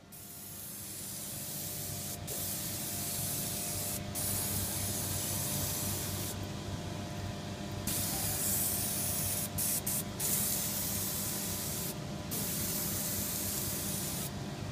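Paint spray gun hissing as it sprays coating, triggered in passes of a few seconds each with short breaks between, over a steady low hum.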